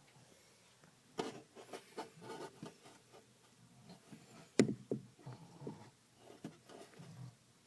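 Scattered light knocks, clicks and rubbing from someone moving about and handling things inside the car, with one sharp click about four and a half seconds in.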